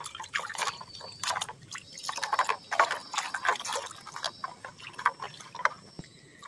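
Soapy water sloshing and splashing in a plastic basin as a hand scrubs a toy airliner under the surface: a run of irregular splashes and drips that dies down about a second before the end.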